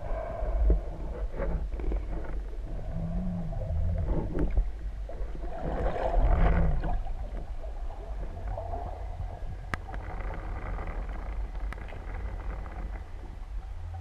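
Muffled underwater noise picked up through a speargun-mounted camera's housing: a steady low rumble of water with scattered clicks and knocks, and a louder swell of noise about six seconds in.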